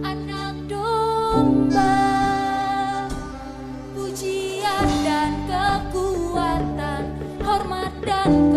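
Music: a sung melody with vibrato over held chords and bass notes that change every second or two.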